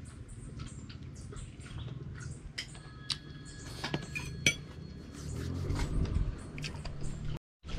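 A spoon clinking and scraping against a plate of food, with scattered sharp clicks and a few short ringing clinks around the middle. A low rumble comes in about five seconds in, and the sound cuts out for a moment near the end.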